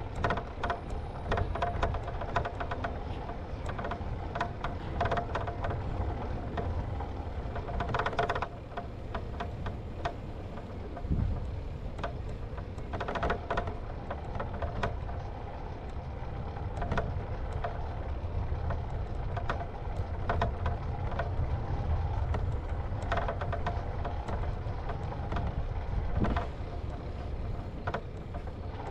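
Bicycle riding over stone pavers, heard from a mount on the bike: a steady low rumble of wind and rolling on the microphone, with frequent light clicks and rattles.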